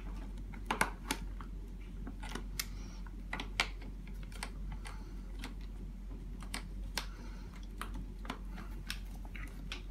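Irregular sharp metal clicks, two or three a second, of pliers gripping and turning the nut on a stroller's front wheel swivel axle as it is tightened.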